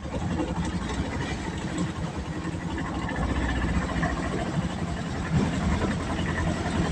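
Hail and heavy rain falling: a dense, steady clatter of countless small impacts over a low rumble.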